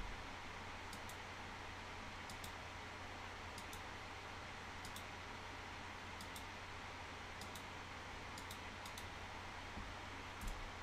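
Faint clicks of a computer mouse, mostly in quick pairs about every second, over a steady background hiss and low hum.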